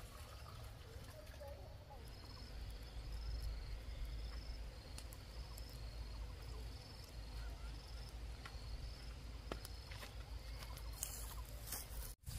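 Rural outdoor ambience: an insect, cricket-like, chirping in a high, evenly repeated pulse over a steady low rumble, with a few faint light footfalls.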